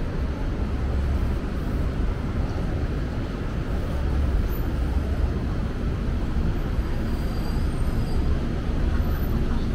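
Steady low rumble of city street traffic beneath an elevated subway line.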